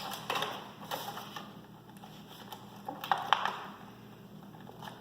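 Knife cutting into stiff plastic clamshell packaging, the plastic crackling and clicking in irregular bursts.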